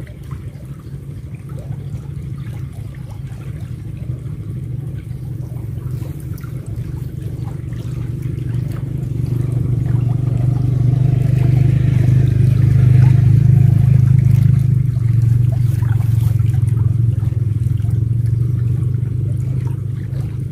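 A motor engine droning steadily, growing louder from about halfway in, peaking, then easing off toward the end, as an engine passing by does.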